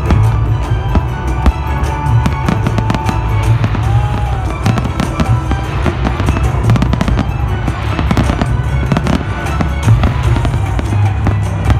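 Fireworks display: a rapid series of bangs and crackles from bursting shells, thickest in the middle of the stretch, over loud music with heavy bass.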